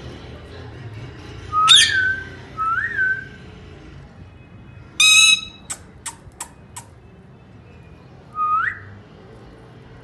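Indian ringneck parakeets calling: two rising whistles about two seconds in, a harsh squawk about five seconds in followed quickly by five sharp clicks, and another rising whistle near the end.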